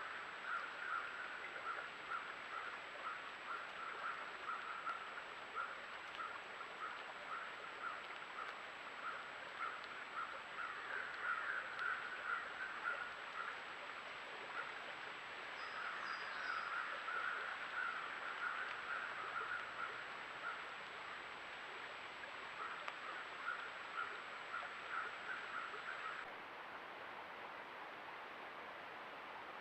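Rain-swollen woodland stream running, with a steady rush of water. Over it, short, pulsed animal calls repeat several times a second in bouts. Near the end the calls stop and the sound cuts to steadier water noise.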